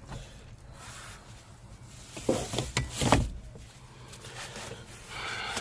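Workshop handling noises: rubbing and a few knocks, the loudest a little over two and about three seconds in, as greased driveshaft parts are fitted back together.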